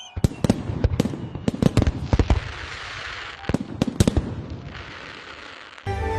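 Fireworks going off: a rapid, irregular string of sharp bangs, with two spells of crackling in between. Music cuts in abruptly near the end.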